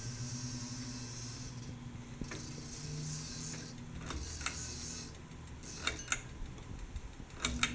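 CEC hugger ceiling fan running on its low speed, its motor giving a steady low buzz over a soft hiss, with a few light clicks near the end. The buzz on low is put down to the motor, or perhaps to some loosened parts.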